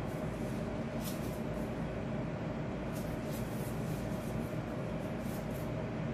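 A steady low background hum, with a few faint, soft crinkles of plastic food-prep gloves as the hands fold small pieces of dough.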